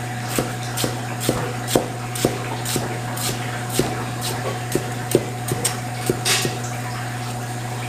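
Chinese cleaver chopping pork into small dice on a thick wooden chopping block: sharp knocks about two a second, petering out near the end, over a steady low hum.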